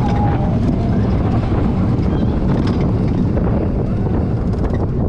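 Roller coaster train running on its track: a steady rumble and rattle of the wheels under heavy wind noise on the microphone, with scattered clicks and knocks.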